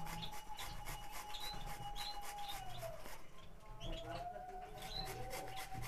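A carrot being grated by hand, rapid repeated rasping strokes against a grater, while caged finches chirp in short calls behind it.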